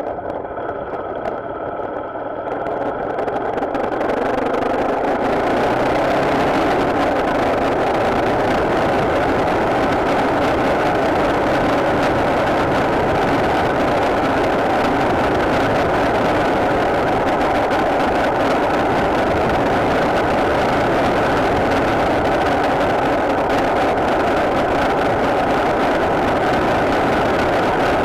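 Motorcycle running on the road, growing louder over the first few seconds and then holding a steady drone.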